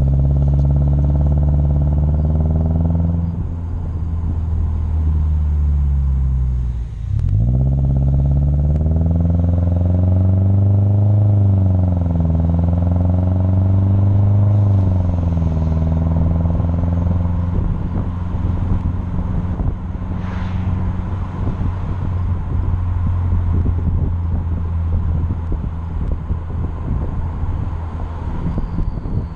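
Subaru Crosstrek's flat-four engine heard through a Nameless Performance 5-inch muffler while driving. The exhaust note drops in pitch as the car slows about seven seconds in, then climbs as it pulls away again. In the second half the engine note fades under rushing road and wind noise as the car cruises.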